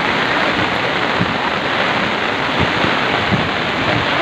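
Swollen hill-river floodwater rushing over a washed-out road embankment: a loud, steady rush of water, with rain falling.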